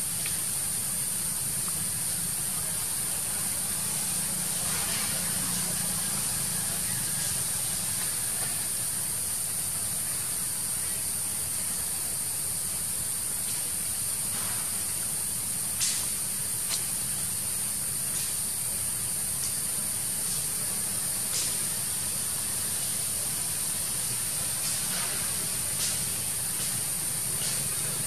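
Steady high-pitched drone of forest insects such as cicadas, with a low rumble underneath and a few faint clicks.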